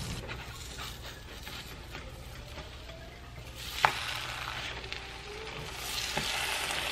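Pancake batter sizzling in a hot nonstick frying pan, with a single sharp click about four seconds in. Near the end a pancake is turned with a plastic spatula and the sizzle grows louder.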